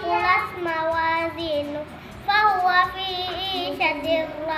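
A young girl chanting a memorized recitation in a sing-song melody, holding and bending notes, with a short pause about two seconds in.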